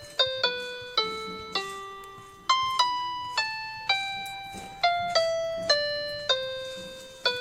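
Background music: a slow melody of single struck keyboard notes, each sounding sharply and then fading, about two a second.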